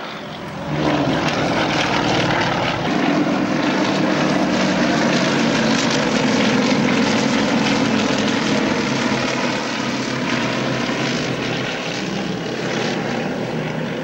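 A formation of single-engine propeller aircraft flying past, their piston engines and propellers running loud and steady. The sound swells about a second in, and the engine note shifts slightly in pitch as they pass.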